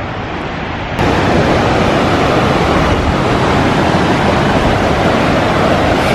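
Yosemite Creek rushing over granite cascades just above the brink of Upper Yosemite Falls: a steady, loud rush of water, stepping up in level about a second in.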